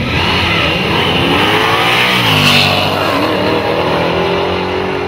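Two drag cars, a Dodge Challenger SRT Demon and a vintage muscle car, launching off the line and accelerating hard down the strip. The engines rise in pitch through the gears, with drops at shifts about two seconds in and again just past three seconds.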